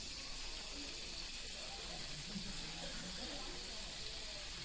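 Thin slices of beef frying in melted beef fat in a sukiyaki pan, with a steady sizzling hiss.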